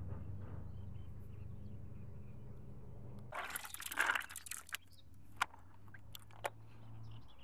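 Wet groundbait squelching and rustling as hands squeeze and pack it in a plastic bucket, a burst of about a second and a half, followed by a few sharp clicks.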